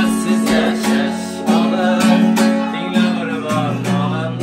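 Acoustic guitar being strummed in chords, a short instrumental passage between sung lines, with a chord change to a lower bass note about three and a half seconds in.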